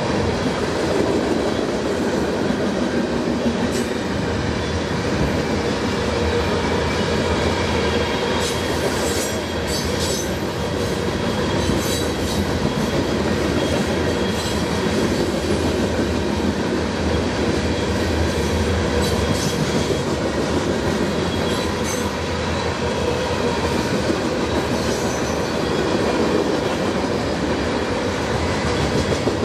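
Freight cars rolling past: a steady rumble of steel wheels on the rails, with scattered clicks and clanks from wheels and couplers here and there.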